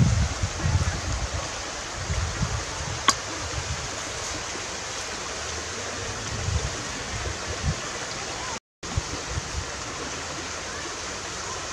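Steady rushing hiss of flowing water, with low wind rumbles on the microphone in the first few seconds and a single sharp click about three seconds in. The sound cuts out completely for a moment about two-thirds of the way through.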